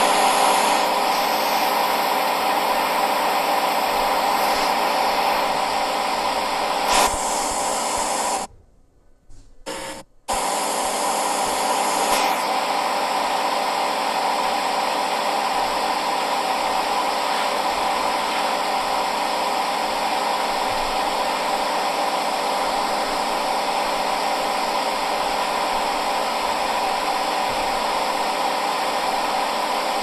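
Front-loading washing machine running with a steady whirring hum. It cuts out almost to silence for about two seconds, about eight seconds in, then comes back as before.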